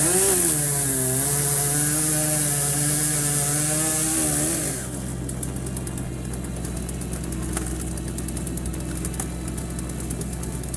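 Firewood processor running, its engine under load while the saw cuts through a log for about the first four and a half seconds, with a loud hiss of cutting. It then drops to a quieter steady running sound with a fast rattle.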